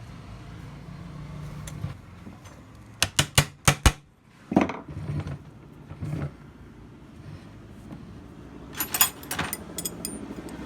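Sharp clicks and knocks of hand tools on metal: a quick run of about five about three seconds in, a few duller knocks after it, and another cluster near the end, over a steady low hum.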